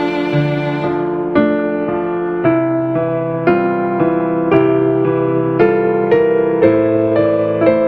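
Background piano music: a slow melody with notes struck about once a second, coming a little quicker near the end.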